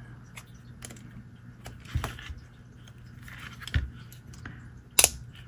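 Metal hand-held hole-punch pliers clicking and tapping as they are handled and paper is positioned in the jaws, with one sharp snap about five seconds in.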